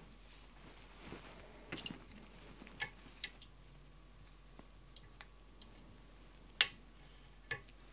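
Sparse light clicks and ticks from a wire whip-finish tool and tying thread being worked at a fly-tying vise, with a sharper click near the end.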